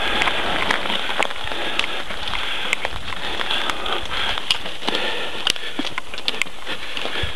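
Mountain bike descending a forest dirt trail: a steady rushing, rattling noise from the tyres and frame, broken by many sharp clicks and knocks as it runs over twigs and bumps.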